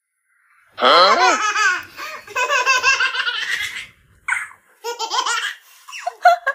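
Baby laughing in repeated bursts of high-pitched giggles, "hehehe", starting about a second in.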